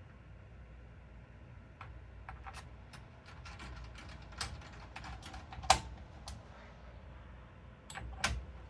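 Light, irregular clicks and taps of small computer parts and screws being handled during a PC build. They begin about two seconds in, the loudest comes about halfway through, and two more come near the end.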